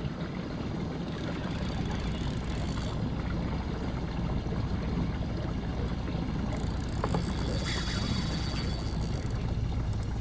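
Steady wind and water noise around a small boat: a low rumble with a hiss that grows louder twice.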